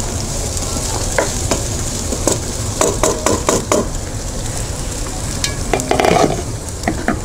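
Chopped vegetables sizzling in hot oil in a non-stick pan, with a wooden spatula scraping and stirring them in a run of short strokes between about one and four seconds in. The vegetables are cooked through for stir-fried rice.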